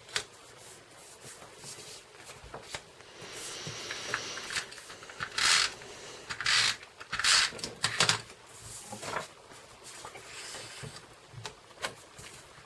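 Paper and cardstock being handled: rustling and light taps, with several short, sharp scratchy swishes of paper through the middle.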